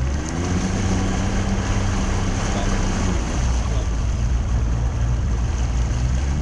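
Boat's outboard motor running steadily under way, a constant low hum under a loud rush of wind and water.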